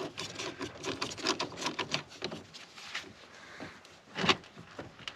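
A rapid run of small clicks and scrapes, then quieter handling and a sharper click about four seconds in: a wrench working a battery terminal nut loose and the cable clamp being handled.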